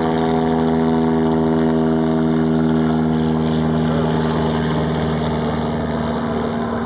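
Fieseler Fi 156 Storch's piston engine and propeller droning steadily as the aircraft flies low and slow overhead at minimum speed, fading slightly toward the end.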